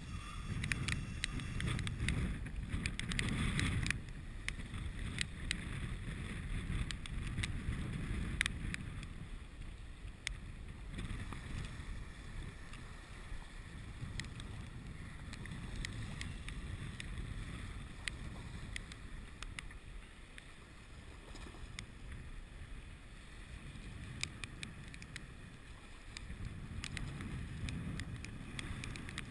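Wind rumbling on the microphone, strongest in the first few seconds and again near the end, over choppy water lapping, with scattered light clicks.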